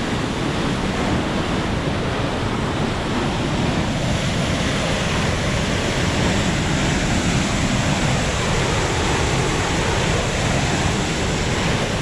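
Floodgate release water rushing and churning through a dam's concrete spillway channel: a loud, steady rushing that never lets up.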